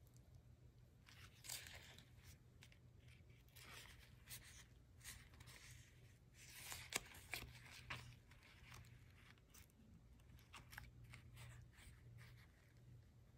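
Faint rustling and crinkling of thick paper tag pages being turned and handled in a handmade junk journal, with a sharper tap about seven seconds in, over a low steady hum.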